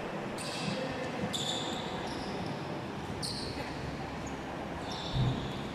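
A volleyball thuds once on a sports-hall floor, the loudest sound, about five seconds in. Before it come several short, high squeaks of players' shoes on the court.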